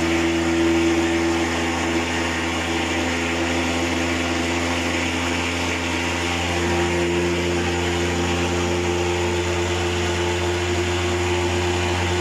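Insecticide thermal fogging machine running with a steady, even drone, freshly started.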